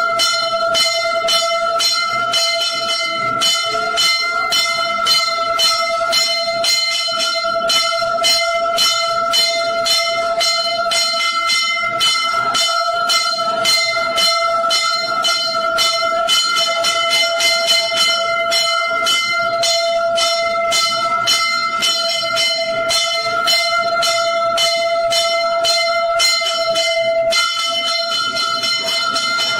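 Hindu temple bells ringing during aarti, struck rapidly and continuously over a steady ringing tone.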